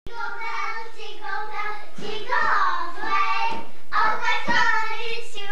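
Young children's voices in a small room, in drawn-out phrases with short pauses between them.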